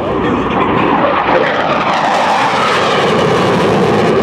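F-104 Starfighter's J79 turbojet running in afterburner as the jet flies past, a loud steady rush with a tone that slides down in pitch about halfway through.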